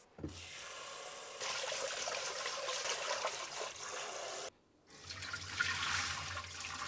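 Tap water running into a rice-cooker pot of rice as the rice is washed. After a short break, wet rice is tipped into a stainless mesh strainer.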